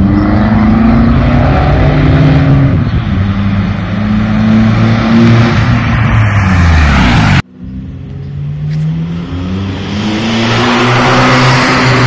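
Opel Astra G 2.0 DTI four-cylinder turbodiesel with a straight-pipe exhaust (2.5-inch downpipe), loud and gruff as it pulls away: the engine note climbs in pitch under acceleration, then falls off. The sound cuts off abruptly about seven seconds in, and another acceleration rises after it.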